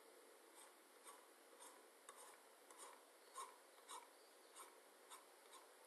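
Faint scratching of a marker pen drawing short hatching strokes on paper, about two strokes a second.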